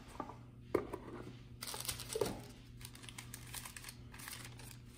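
Paper and cardboard packaging being handled: soft crinkling and rustling of a paper sleeve, with a few light taps of the box. The rustling is densest about two seconds in.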